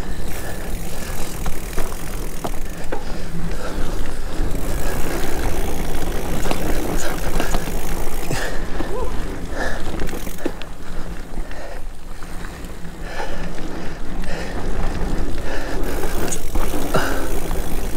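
Mountain bike ridden along a packed-dirt singletrack: a steady rush of tyre and riding noise with frequent small clicks and rattles from the bike.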